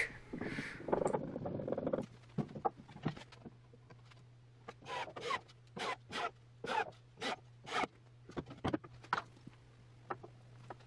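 A plugged-up plastic glue bottle being squeezed, sputtering: a hissy spurt at first, then a string of short, separate squirts of air and glue.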